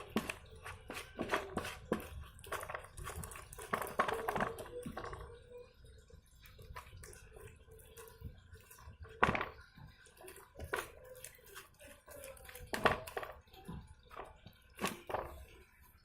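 Irregular clicks and knocks of hands and utensils handling bait containers and mixing ingredients, closely packed for the first few seconds, then a handful of sharper knocks spaced a second or two apart.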